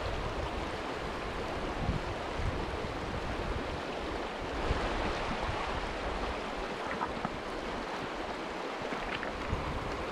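Shallow river running over a cobble riffle: a steady rush of moving water, with light wind buffeting the microphone at times.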